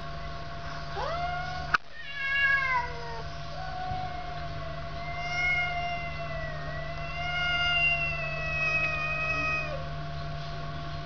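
A cat yowling: two short meows in the first few seconds, one rising and one falling, then one long, wavering yowl of about six seconds. A single sharp click comes about two seconds in, over a steady background hum.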